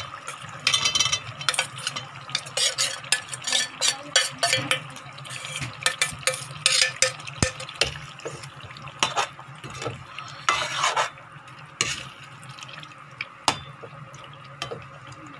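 A steel spoon scraping and clinking against a steel bowl and cooking pot as marinated soya chaap pieces are scraped into thick masala gravy and stirred. The clatter is dense for the first half and thins to occasional knocks and scrapes later.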